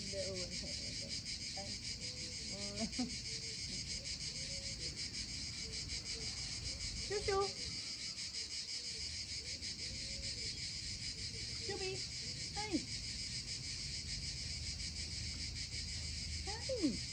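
Steady chorus of insects, a dense, high, rapidly pulsing buzz that never lets up.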